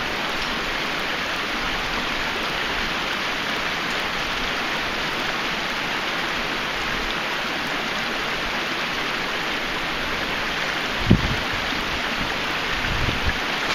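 Steady rush of creek water running, with one short low thump about eleven seconds in and a few softer knocks near the end.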